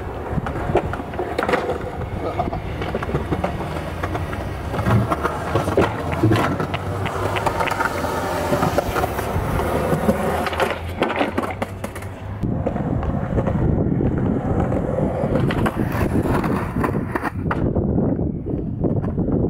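Skateboard wheels rolling over rough concrete, with sharp clacks from the board's tail and landings now and then. About two thirds of the way through, the rolling turns to a coarser, lower rumble.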